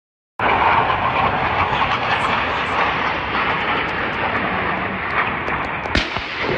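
Steady rushing noise of a Su-25 attack jet's twin turbojet engines as the jet flies low past. The sound cuts in abruptly just after the start, and a single sharp bang comes about six seconds in.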